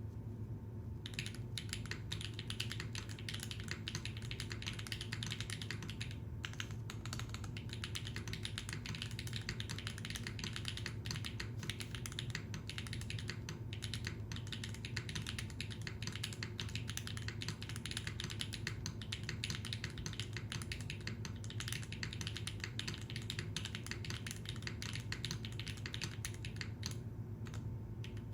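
Typing on an F1-8x v2 mechanical keyboard with Gateron Baby Kangaroo tactile switches on an aluminium plate: fast, continuous keystroke clacks. The clacks break off briefly about six seconds in and again near the end.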